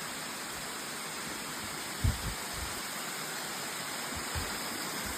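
Waterfall rushing steadily, with a short low thump about two seconds in.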